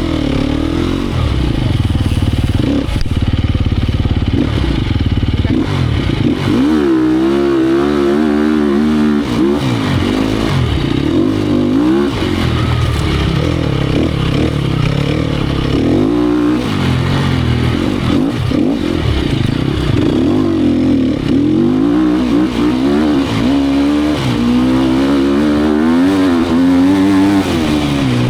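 2018 Sherco 250 SEF Factory's four-stroke single-cylinder enduro engine running hard, its pitch rising and falling over and over as the throttle is opened and shut through the course.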